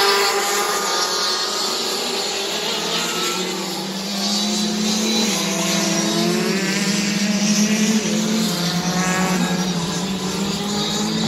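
Several racing karts' engines running on the track together, their pitch rising and falling as they accelerate and go past.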